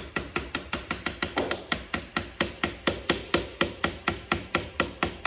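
Rapid, even hammer strikes on a metal punch, about four or five a second, driving a wooden peg out of the pegged joint that holds a rocker to a rocking chair frame.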